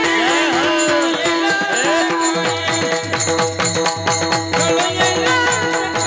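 Pakhawaj (mridang) playing fast strokes in a Varkari bhajan, its bass strokes bending in pitch at first, then a quick run of low strokes from about halfway in, with small hand cymbals (taal) striking a steady beat and a held note underneath.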